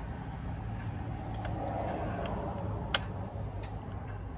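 Steady low background rumble with a hum. Over it come a few sharp plastic clicks as the Homelite 240 chainsaw is handled, the loudest about three seconds in. The saw is not running.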